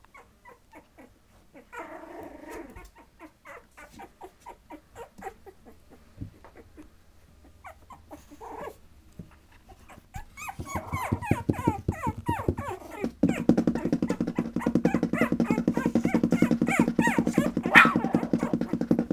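A litter of 20-day-old Patterdale Terrier puppies whimpering and growling as they play, quiet at first and growing much louder and busier about halfway through, with a sharp high yelp near the end.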